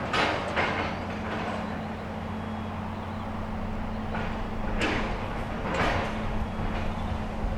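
Heavy machinery at a building demolition: a steady engine hum with sharp clanks and crunches of debris, four of them, two right at the start and two more about five and six seconds in.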